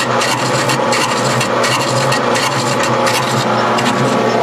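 Metal lathe cutting a cast metal ring with a carbide insert bit: the machine runs steadily with a low hum while the cut scrapes and throws off chips, giving many small ticks.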